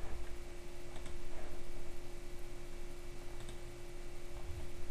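A few scattered computer mouse clicks over a steady low hum and room noise.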